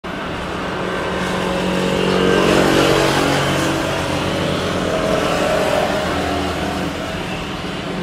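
Steady engine noise that swells over the first two or three seconds and then slowly eases.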